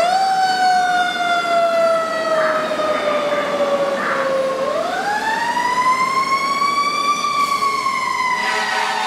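Fire engine siren wailing as the truck responds to a call: the pitch sweeps up quickly, slides slowly down for several seconds, then climbs again and begins to fall.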